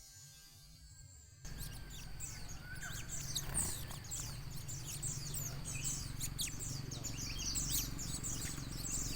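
Small songbirds, gelatik, chirping in a dense stream of rapid, short, high calls over a low steady rumble. The chirping starts abruptly about a second and a half in, after a quieter opening.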